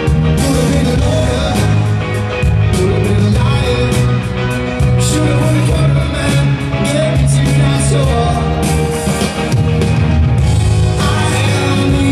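Live band playing a song at full volume over an arena PA, with steady bass, regular drum hits and guitars.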